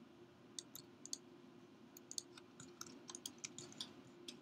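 Faint, scattered clicks of a computer mouse and keyboard, coming in small clusters, over a low steady hum.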